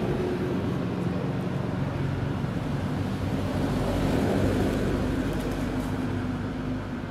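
A motor engine running steadily, swelling a little about four seconds in and easing off near the end.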